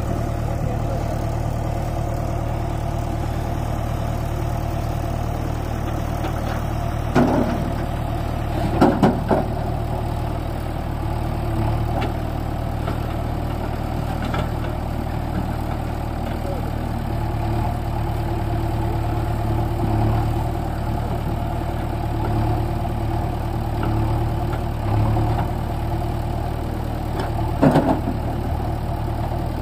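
Four-cylinder diesel engine of a Mahindra 585 DI Power Plus tractor running at a steady speed, with a low, even hum that does not rise or fall. A few short knocks or clatters come through about seven seconds in, around nine seconds in, and near the end.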